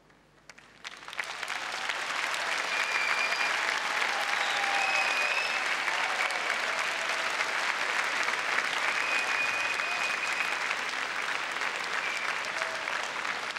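Large indoor audience applauding. A few scattered claps about a second in quickly build into sustained, even applause that continues to the end.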